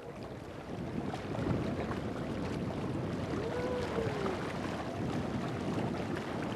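Steady wind and water noise on a small boat, growing louder about a second in, with faint clicks and one brief rising-and-falling tone near the middle.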